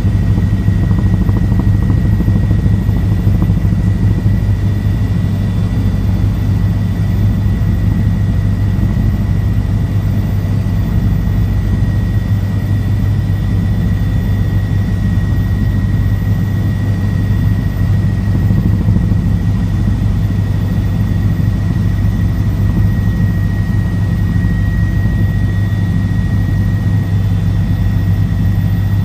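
Helicopter engine and rotor in flight, a loud, steady low drone with a thin, steady high whine over it.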